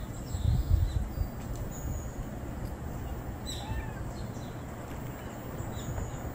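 Outdoor background of a steady low rumble with a few faint, short bird chirps. One chirp falls in pitch about three and a half seconds in.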